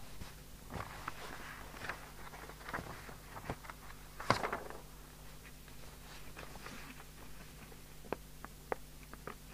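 Scattered light clicks and taps, one sharper click about four seconds in, over a steady low hum.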